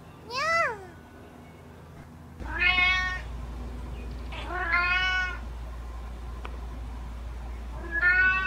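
Cat meowing: four separate meows a couple of seconds apart, each a short call that bends up and down in pitch, over a faint low hum.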